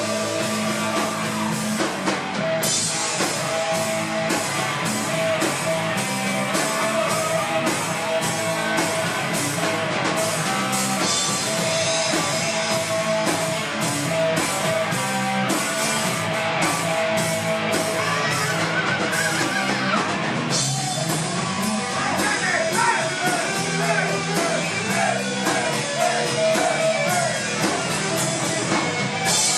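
Live hard rock band playing: distorted electric guitars and drums with regular cymbal hits, loud and continuous.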